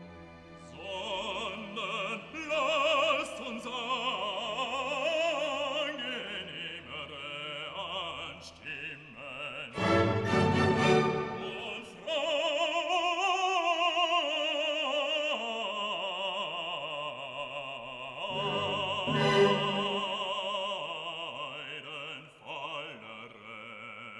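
Background opera music: a singer with strong vibrato, with swells about ten seconds in and again near twenty seconds.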